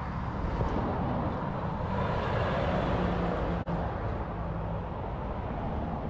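Road traffic: the steady rush of tyres and engine noise from a passing vehicle, swelling a couple of seconds in, with a momentary dropout in the sound a little past halfway.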